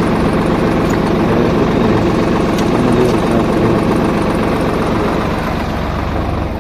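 Swaraj 855 tractor's three-cylinder diesel engine running steadily while the hydraulic lift control levers are worked by hand.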